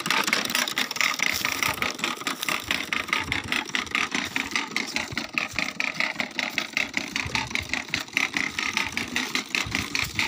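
A mechanism running with a fast, even clicking rattle.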